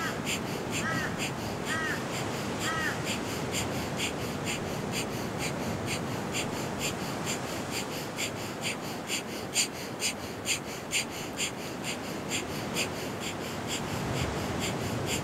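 Rapid, rhythmic breath of fire: short, sharp exhalations through the nose, about two to three a second, keeping an even pace. A bird calls three short, falling notes in the first three seconds.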